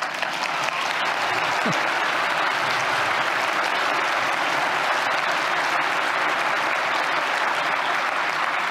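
An audience applauding: a sustained round of clapping that swells in the first second and then holds steady.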